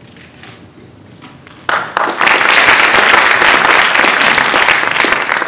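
Audience applauding, starting suddenly about two seconds in after a short quiet pause.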